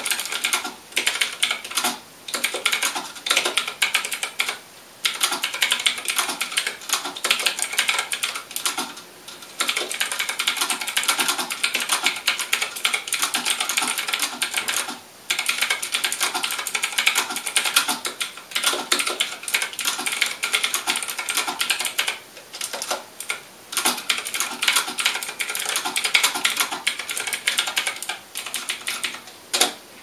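Typing on a custom 60% mechanical keyboard with clicky Gateron Green switches and round typewriter-style keycaps. It is a fast, dense stream of sharp clicks, broken by a few short pauses.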